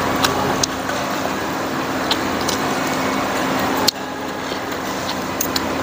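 Steady background hum with a constant low tone, broken by a few sharp clicks of a metal fork and spoon against a plate.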